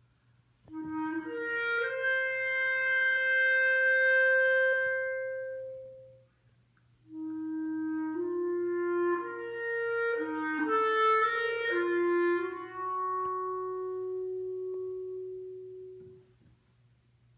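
Wind and brass octet (flute, clarinet, two bassoons, two trumpets, two trombones) playing sustained chords. A first phrase enters just under a second in and holds until about six seconds. After a short pause a second phrase of shifting notes ends on a long held note and dies away near the end.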